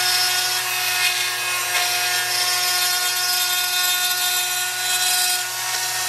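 Handheld rotary tool running steadily, its grinding-stone bit abrading a hole through a ceramic pedestal: a constant motor whine over a gritty grinding hiss.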